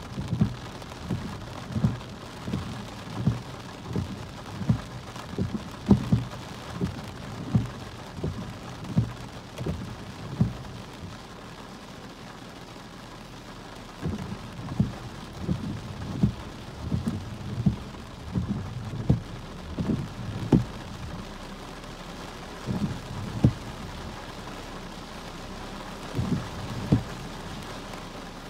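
Heavy raindrops striking a car's windshield and roof, heard from inside the car as irregular dull taps and thumps over a steady patter, easing off for a few seconds in the middle.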